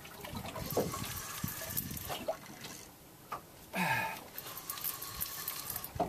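Water lapping and splashing against the hull of a small fishing boat, with one brief louder sound about four seconds in.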